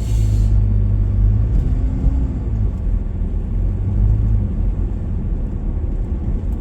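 Steady low rumble of a vehicle's engine and road noise, heard from inside the cabin while driving on a snowy mountain road.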